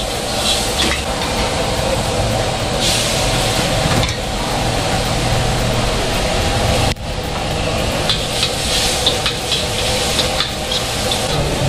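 Noodles sizzling as they are stir-fried in a wok, with short clinks of a metal spatula against the wok. The sizzle breaks off briefly about seven seconds in.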